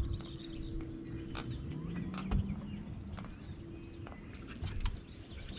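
Birds chirping and calling, many short high chirps and quick sweeping notes, over a steady low hum, with two brief low thumps about two and five seconds in.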